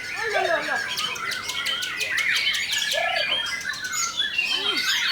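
White-rumped shamas (murai batu) singing at once in a dense, overlapping chorus of rising and falling whistles, trills, harsh chatter and sharp clicks.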